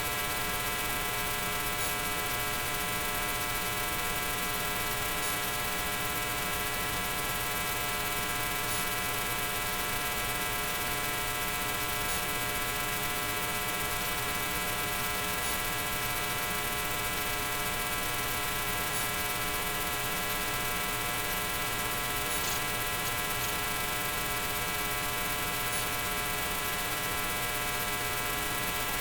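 Steady electrical hum with a dense stack of even overtones, unchanging in pitch and level throughout.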